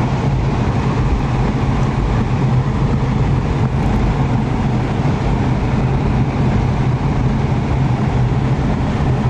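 Steady low rumble with a hiss over it, heard from inside a car driving slowly through rain.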